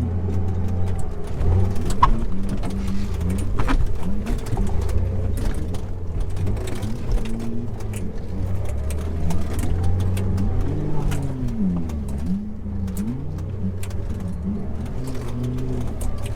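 Off-road vehicle engine running under a steady low rumble, its pitch rising and falling again and again as the throttle is worked. A couple of sharp knocks come about two and four seconds in.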